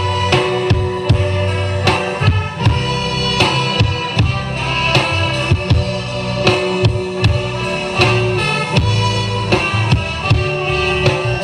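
Music with a drum kit beat and a heavy bass line, played back over speakers for a sound test.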